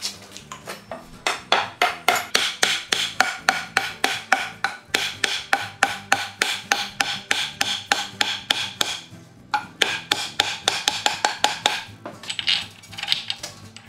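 Rasp rapidly stroking a wooden wagon-wheel spoke, about four strokes a second, shaping the spoke end to fit the hub socket. The strokes stop briefly about two-thirds of the way through, pick up again, then turn softer and uneven near the end.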